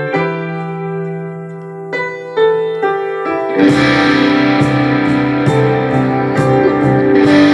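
Music played through the rebuilt Vizio soundbar's small drivers and tweeter in a wooden enclosure: a keyboard passage of separate notes over a held bass note, then about three and a half seconds in a full band with distorted electric guitar and a steady drum beat comes in.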